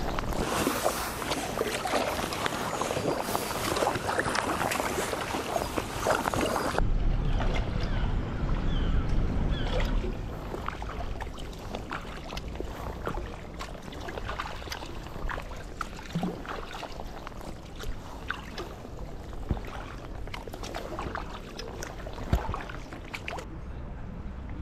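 Water splashing and lapping close to the microphone at the water's edge, then, after a sudden change about seven seconds in, quieter kayak paddling: paddle blades dipping and dripping in scattered small splashes as the kayak glides.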